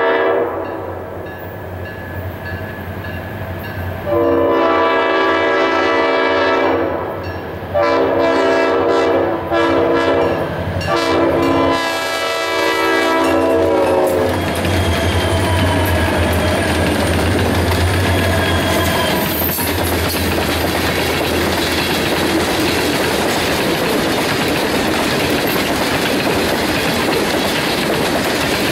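Diesel freight locomotive's air horn sounding a series of long blasts for a grade crossing, loud and close as the lead locomotives pass, the last blast ending about halfway through. After that comes the steady rumble and wheel clatter of a long string of tank cars rolling by.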